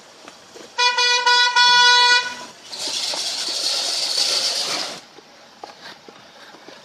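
A car horn sounds once, held steady for about a second and a half, then a steady hiss lasts about two seconds.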